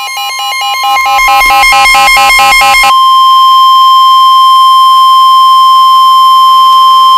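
NOAA Weather Radio's 1050 Hz warning alarm tone, a loud steady single tone that signals a warning message is about to follow. For the first three seconds or so, a fast alternating two-tone beeping sounds over it; after that the steady tone continues alone.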